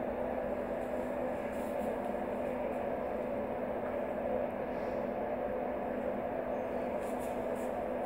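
Small battery motor of a plastic toy train whirring steadily as it runs on its track, a constant hum.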